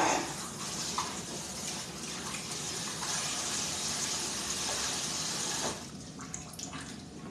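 Kitchen tap running while hands are washed under it, a steady rush of water that is turned off about six seconds in.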